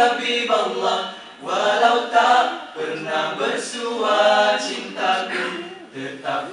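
Male nasheed group singing a cappella, several voices together in phrases with a short breath about a second and a half in and another near the end.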